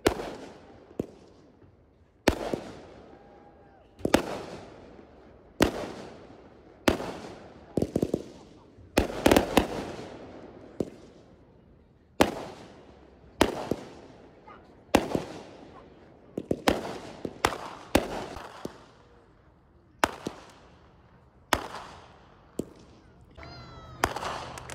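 Aerial fireworks bursting overhead, with a sharp bang about every second or so, each trailing off in an echo. A quick cluster of crackling bursts comes about nine seconds in, and a short whistle near the end.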